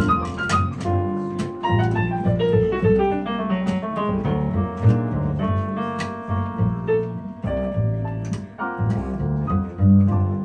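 Instrumental jazz: an electric stage piano plays a flowing run of notes over an upright bass line, with no vocals.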